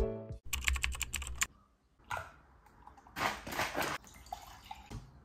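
A quick run of light clicks, like a metal fork tapping and scraping a ceramic plate. After a pause comes about a second of liquid splashing as orange juice is poured from a plastic bottle into a glass.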